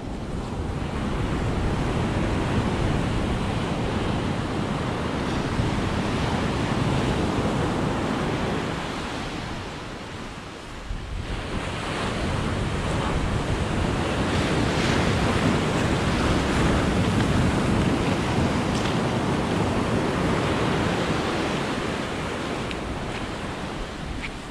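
Ocean surf breaking and washing up a sandy beach: two long surges of wave noise, with a lull about ten seconds in.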